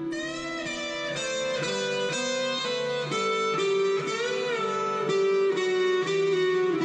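Solo electric guitar playing a melodic lead line, single notes that change about every half second, some of them bent in pitch.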